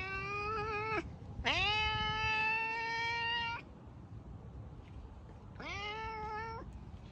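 Domestic cat meowing three times, each meow rising quickly in pitch and then held; the middle meow is the longest and loudest.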